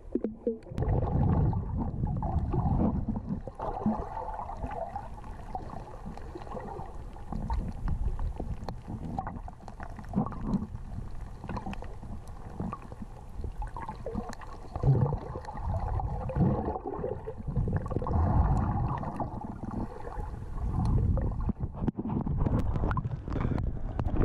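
Muffled underwater sound through an action camera's waterproof housing held under the sea: low, uneven rumbling and gurgling of water moving against the housing, with scattered faint clicks.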